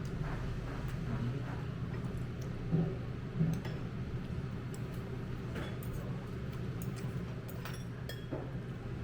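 Scattered light clicks of utensils against dishes, with two duller knocks about three seconds in, over a steady low room hum.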